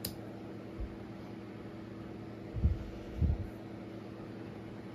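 A steady low hum with a faint even tone. A little past halfway come two dull thumps about half a second apart, from hands handling a digital multimeter and its test leads on the bench.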